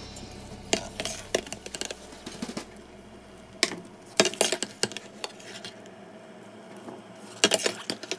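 Metal utensils tapping and scraping against a stainless steel pot of boiling broccoli: scattered clinks, with a quick run of knocks about four seconds in and another near the end.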